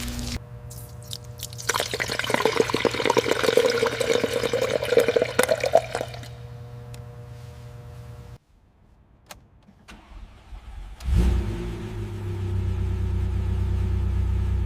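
A hissing, rushing noise over a steady hum runs for a few seconds and dies away. After a short near silence, a car engine starts suddenly about eleven seconds in and settles into a steady idle.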